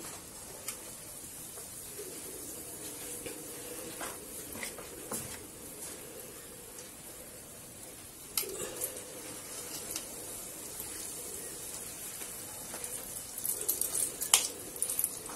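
Spoonfuls of banana fritter batter frying in a pot of oil: a steady sizzle, with a few sharp clicks of metal spoons against the pot and bowl.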